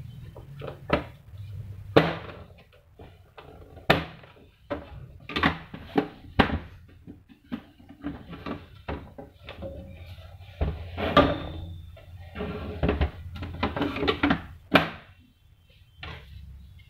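The plastic casing of a GP-1125T printer being handled and fitted together: irregular knocks and clicks of hard plastic parts, with sharper strikes about two and four seconds in and clusters of clatter later on.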